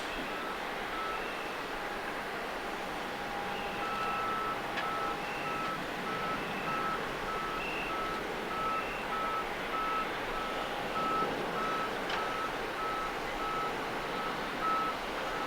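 A vehicle's reversing alarm beeping steadily, a little under two beeps a second, starting about four seconds in, over a steady rush of background noise.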